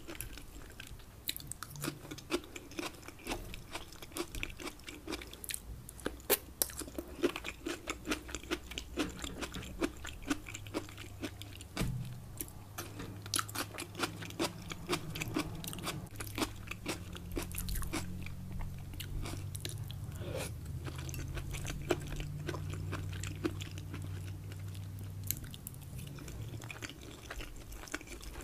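Close-miked chewing and crunching of a mouthful of fried rice with shrimp and scallops: dense, irregular wet clicks and crackles, with a plastic fork picking at food on a plate. A low steady hum sits underneath from about halfway through.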